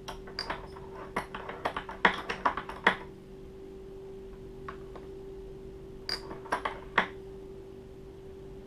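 Clicks and clacks of a reloading press and its press-mounted powder measure worked by hand while the powder charge is adjusted: a quick run of them in the first three seconds and a few more about six seconds in, over a steady hum.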